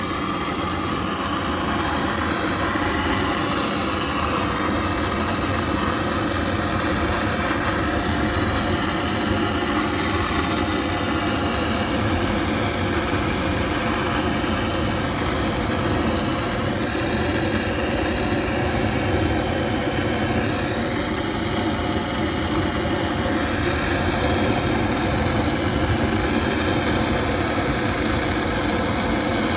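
Wood fire burning hard in a masonry heater's firebox: a steady, loud draught roar with a few faint crackles.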